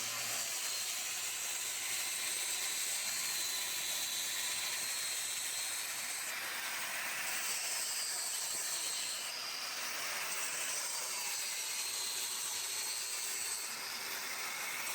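Mortar-joint grinder cutting out old mortar between chimney bricks, its high whine wavering as the blade loads and dropping out briefly a couple of times, over the steady hiss of a dust-extraction vacuum.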